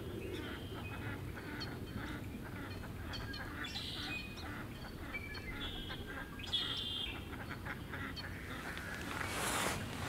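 A flock of dabbling ducks calling on a pond: a scatter of short, high calls, busiest about four and seven seconds in. A brief rush of noise comes near the end.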